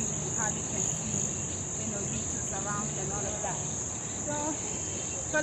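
Steady high-pitched insect chorus at dusk, with faint distant voices now and then.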